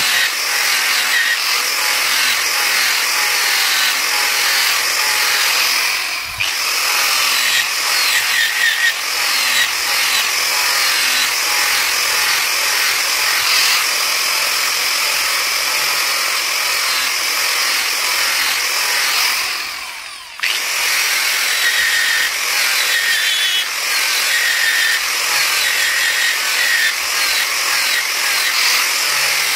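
Angle grinder with an abrasive disc grinding the steel blade of a machete, a steady high-pitched whine and hiss. The grinding eases off briefly about six seconds in and again, more deeply, about twenty seconds in, then resumes.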